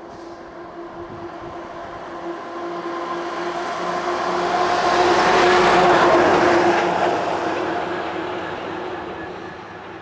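A vehicle passing: a steady hum under a noisy rush that swells to a peak about six seconds in, then fades away.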